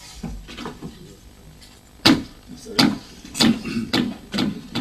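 Footsteps on a hard floor: about five firm, evenly paced steps starting about two seconds in, with fainter small knocks before them.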